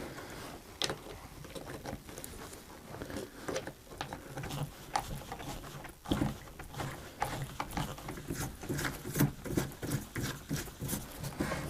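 Small clicks and knocks of a router's plastic and metal parts being handled and fitted together during reassembly, scattered irregularly.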